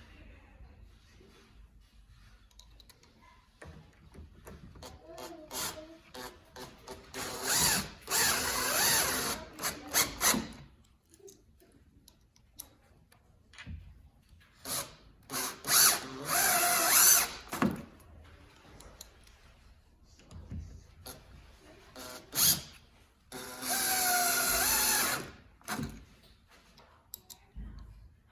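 Power drill driving screws into a self-closing door hinge, in three runs of a few seconds each, with short clicks between.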